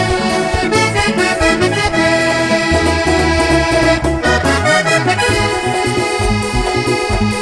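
Vallenato music played live: a diatonic button accordion leads the melody over the band's bass line.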